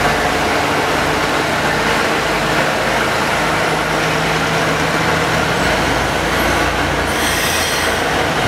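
Steady mechanical rumble of steam locomotive 5700 being hauled slowly along the track, with a low steady hum under it. A brief hiss sounds about seven seconds in.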